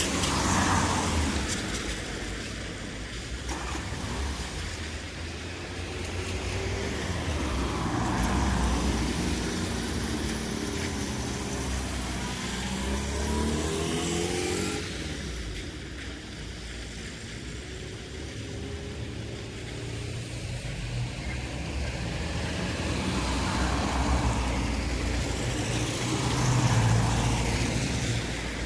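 Street traffic ambience: cars passing one after another, each swelling up and fading away over a steady low rumble, with one passing engine's note gliding in pitch about halfway through.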